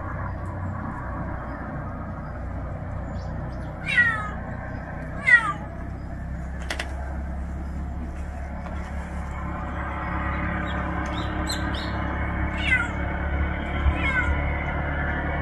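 Street cat meowing: four short meows, each falling in pitch, two close together a few seconds in and two more near the end.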